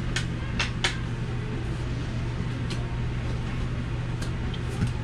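Steady low hum of a camper's air conditioner, with a few short light taps of Uno cards being laid down on the table.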